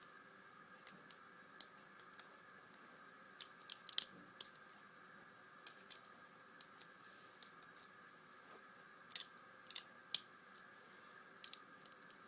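Plastic Lego bricks clicking as they are handled and pressed onto a build: scattered, irregular small clicks over a faint steady hum.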